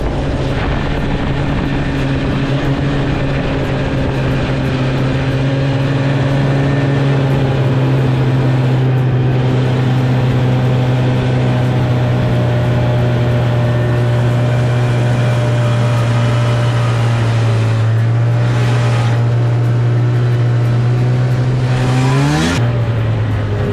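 Snowmobile engine running at a steady, high speed. About 22 seconds in, the engine note rises briefly and then drops sharply as the revs come off.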